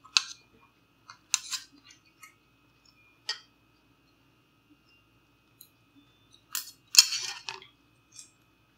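Metal chopsticks clicking and scraping against a stainless steel pot and bowl as food is picked out, in a handful of short bursts with the loudest cluster about seven seconds in.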